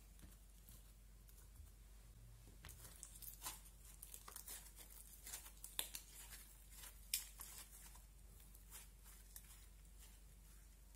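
Grey slime being squeezed and kneaded by hand, giving a run of small sticky crackles and clicks that starts about three seconds in and thins out after about eight seconds.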